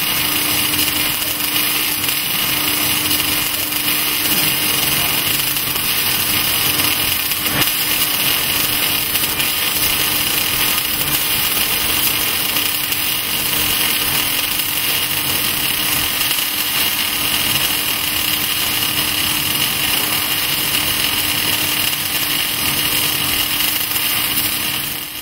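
Welding arc from the torch of an HK-5W oscillating auto welding carriage, sizzling steadily as it lays a bead and throws spatter. It cuts off just before the end.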